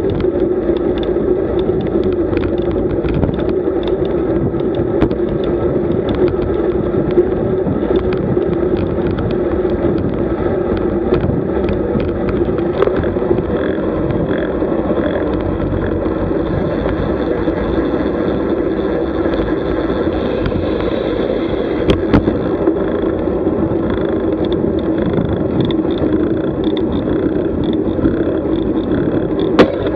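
Road bike riding, heard through the camera's microphone: a steady rumble of wind and road noise with frequent small knocks and rattles from bumps in the road, a few of them sharper.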